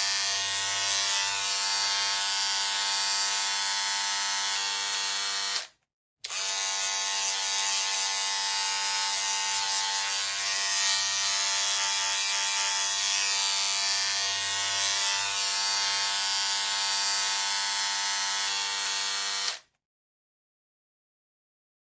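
Electric hair clipper buzzing steadily. It cuts to dead silence for about half a second around six seconds in, then stops again near the end.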